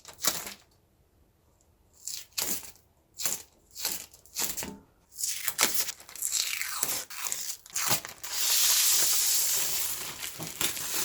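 Adhesive tape and plastic protective film being peeled off a new 3D printer: a series of short rips, then one long, loud continuous peel starting about eight seconds in.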